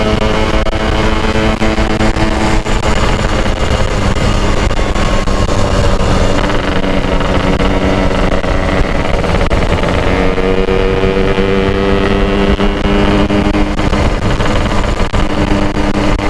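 Two-stroke Kawasaki Ninja 150 SS engine running at cruising speed under way, with wind and road noise. The engine note dips slightly, then climbs again about ten seconds in. The rider says the engine has become noisy and is due for an oversize piston.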